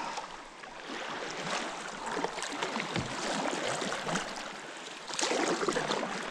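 Canoe paddles dipping and pulling through lake water, with splashes and water lapping at the hull; a louder splash comes about five seconds in.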